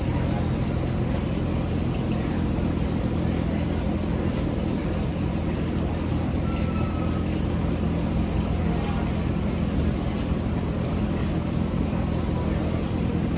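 A generator running steadily with an even low hum, along with the whir of fans.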